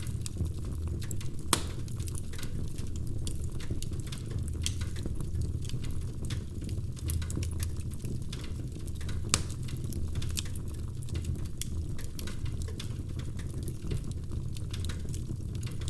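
Wood fire crackling in a fireplace: many small sharp pops and snaps over a steady low rumble, with two louder pops, one about a second and a half in and one a little past nine seconds.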